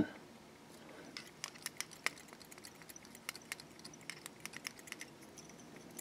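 Faint, irregular small clicks and ticks of tying thread being wrapped with a metal bobbin holder at a fly-tying vise, binding down strands of tinsel.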